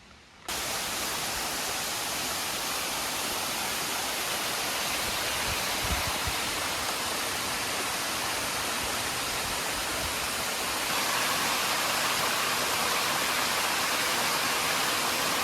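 Waterfall: a steady rush of falling water that starts suddenly about half a second in and grows a little louder past the middle, with a brief low bump about six seconds in.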